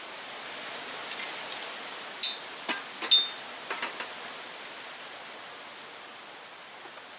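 A handful of sharp clicks and clinks from small hard objects being handled, two of them ringing briefly like small metal parts, over a steady hiss.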